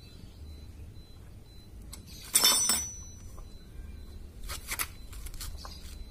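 Metallic clinks from a motorcycle drive chain and tool being handled. There is one loud clank with a short ring about two seconds in, then a few lighter clicks near the end.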